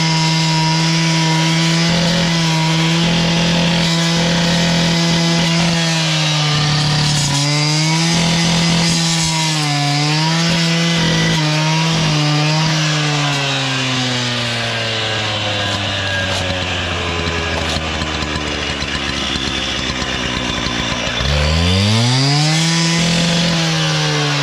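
Two-stroke gas cut-off saw running at full speed, its pitch dipping again and again as the blade bites into the concrete while making a saw cut along a cracked pad. It then slows toward idle, and near the end it is revved up once and let back down.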